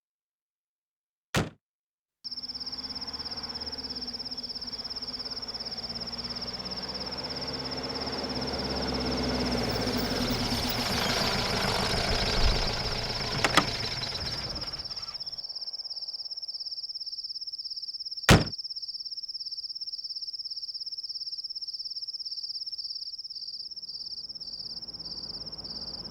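Hindustan Ambassador car's engine running, growing louder in the middle, then switched off about 15 seconds in, against a steady high chirping of crickets. A click comes just before the engine starts and a sharp knock about 18 seconds in.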